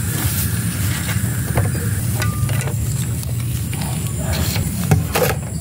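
Honda Revo Absolute's single-cylinder four-stroke engine running steadily at idle, freshly filled with Top 1 MC 20W-50 oil, with a few light clicks over the even putter.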